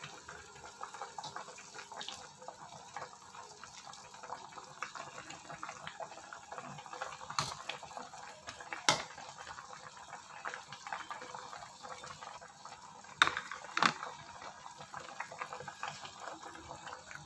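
Fish soup simmering in a wok, a steady light bubbling and crackle of the broth. A few sharp clicks stand out, the loudest about 9 and 13 seconds in.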